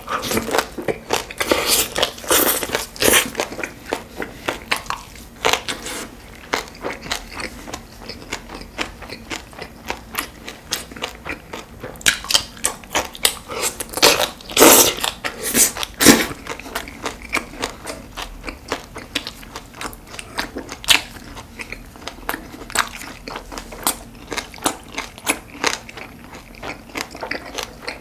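Close-up eating sounds of a person chewing and biting spicy stir-fried pork and green onion kimchi: many quick wet mouth clicks and smacks, with a louder run of bites about halfway through.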